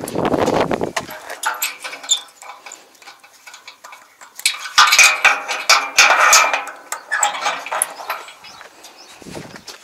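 Metal clinking and scraping as a steel rod and latch on a rusty trailer frame are worked by gloved hands. It starts with a dull rustle, and the clanking is loudest a little after the middle.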